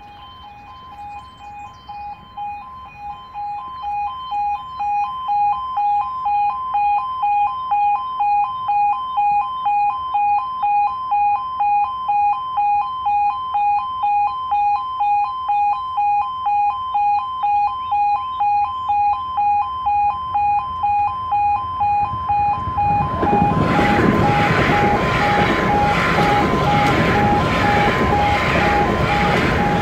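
Level crossing warning alarms (E2S type) sounding a rapid, evenly pulsing pair of tones, rather loud and growing louder over the first few seconds. About 23 seconds in, a South Western Railway Class 450 electric multiple unit passes over the crossing, and its loud rushing rumble joins the alarm.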